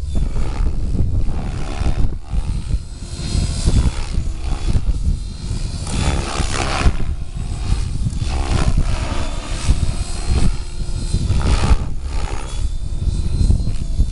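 Gaui X7 electric RC helicopter flying pitch pumps. Its rotor and motor whine rise and fall in pitch as the blades are loaded and unloaded. Heavy wind buffets the microphone with a low rumble.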